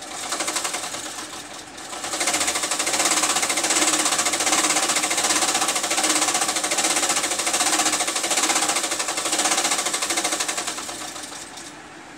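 A loud, rapid mechanical clatter. It starts suddenly, dips briefly, runs steadily for most of the time, then fades out near the end.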